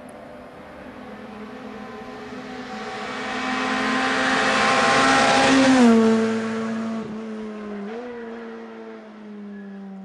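Rally car approaching at speed, its engine growing steadily louder to a peak about six seconds in, where the engine note drops in pitch as it passes, then fading away with a brief rise in engine pitch near eight seconds.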